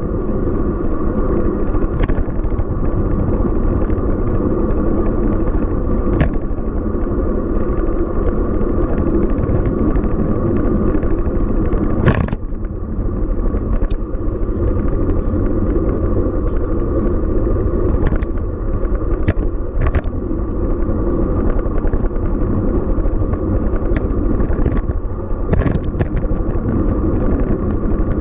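Steady low rumble of wind and tyre noise from a road bicycle riding on city streets, with scattered sharp clicks and rattles, the strongest about twelve seconds in.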